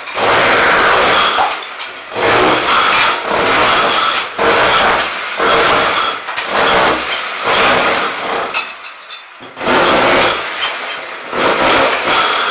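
Rotary hammer breaking shower tiles off a wall, run in repeated bursts of a second or two with short pauses between them.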